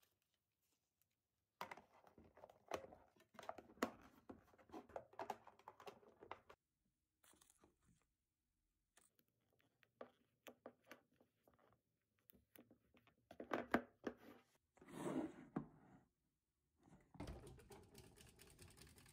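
Parchment paper rustling and crinkling as it is folded into dividers in clear plastic food-storage containers, with light clicks and knocks of the plastic containers and lids. Near the end a refrigerator door is opened and a low steady noise comes in.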